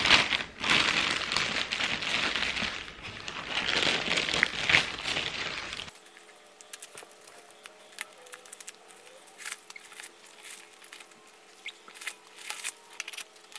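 Clear plastic wrap crinkling loudly as it is pulled off a new leather handbag. About six seconds in the sound cuts abruptly to quieter rustling of paper wrapping with light clicks from handling the bag.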